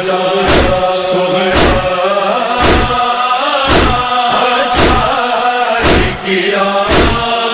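Noha recitation: voices chanting a long, drawn-out lament melody over a steady beat of heavy thumps about once a second, the rhythm of matam (chest-beating).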